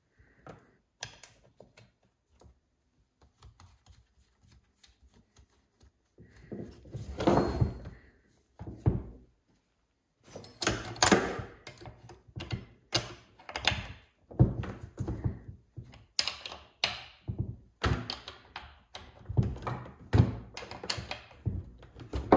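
Scattered clicks, knocks and scrapes from hands working on a Stihl 026 chainsaw's guide bar and chain and turning the bar nuts with a scrench, sparse at first and a busy run of knocks in the second half.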